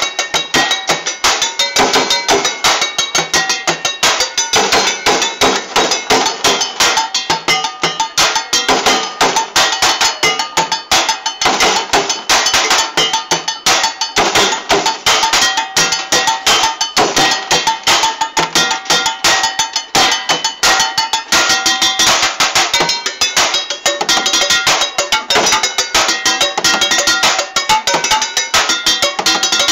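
Street drummer playing a fast, unbroken rhythm with drumsticks on the bottoms of a set of old metal cooking pots. The pots ring with different pitches.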